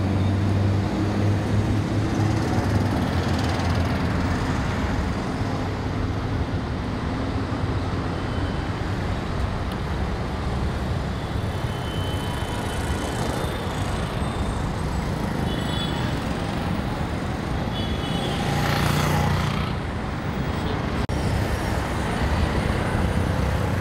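Busy city road traffic: a steady drone of mixed engines from auto rickshaws, trucks, motorcycles and cars, with a vehicle passing close about nineteen seconds in.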